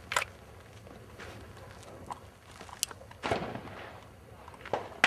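Shots from a Beretta 92FS 9mm pistol, a few sharp reports fired one at a time with gaps of a second or more between them.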